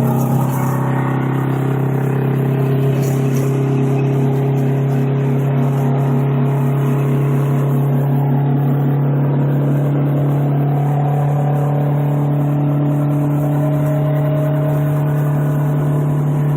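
Straight-piped 8V71 Detroit Diesel two-stroke V8 of a 1980 GMC General semi truck running under way, holding a steady pitch.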